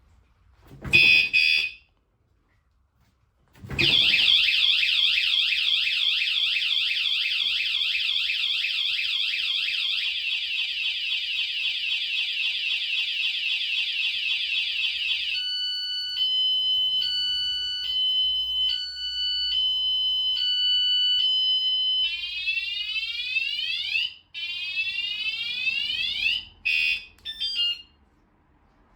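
Motion-sensor bicycle anti-theft alarm: a short warning tone about a second in, then, a couple of seconds later, its loud siren goes off. The siren cycles through several patterns, first a fast warble, then a two-tone alternation, then rising sweeps, and breaks into short chirps near the end before stopping.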